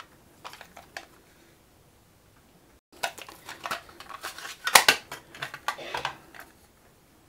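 Clear plastic cassette case being opened and a TDK D60 compact cassette taken out of it: a few light plastic clicks, then a quick run of sharp clicks and rattles, the loudest near the middle of that run.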